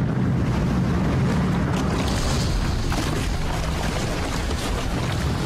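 Steady loud roar of a small open motorboat running flat out, mixed with rushing water and wind buffeting the microphone.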